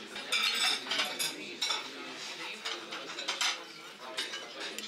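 Silver fork and spoon clinking against a porcelain soup plate: a quick run of sharp clinks in the first couple of seconds, then a few more further on.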